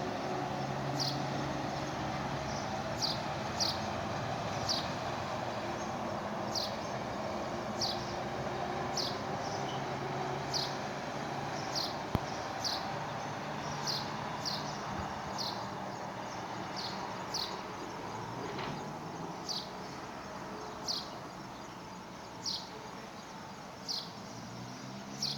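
A small bird repeating a short, sharp chirp that falls in pitch, about once a second, over steady outdoor background noise with a faint low hum that comes and goes.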